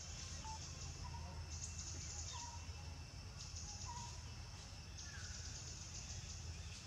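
Outdoor forest ambience: insects buzzing high in spells of a second or two that stop and start, with short chirps, most likely a bird, repeating about once a second, over a low steady hum.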